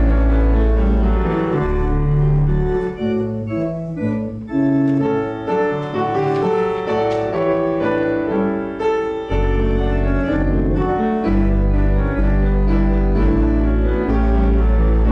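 Organ music: slow, sustained chords over a deep held bass, the bass line dropping out for several seconds in the middle and coming back in.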